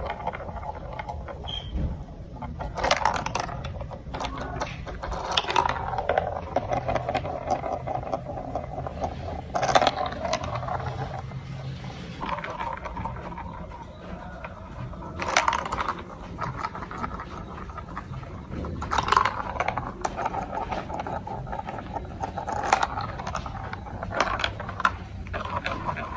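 Marbles rolling and rattling along a plastic building-block marble track, with many sharp clicks as they drop onto and knock against the pieces.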